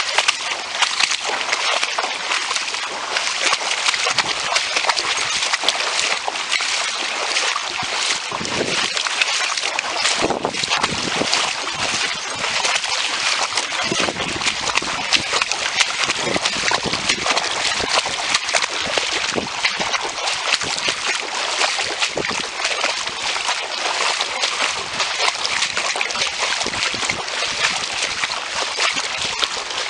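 A person wading on foot through floodwater, with continuous sloshing and splashing as the legs push through the water.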